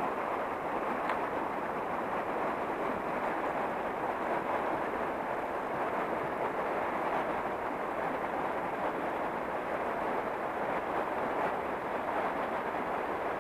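Steady rushing of fast river water running over shallow rapids, an even noise that does not change.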